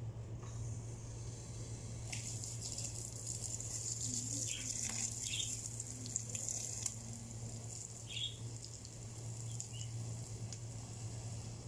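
Water spraying from a garden hose onto plants, a steady hiss that starts about two seconds in. A steady low hum runs underneath, with a few short chirps.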